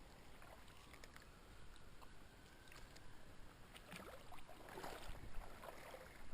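Shallow creek water running faintly. About four seconds in, irregular splashing and rustling grows louder.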